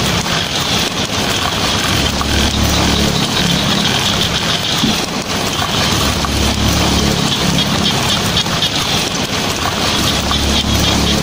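Heavy rain falling on a tin roof, a steady dense hiss and patter, under a low rumble of thunder that swells and eases a few times.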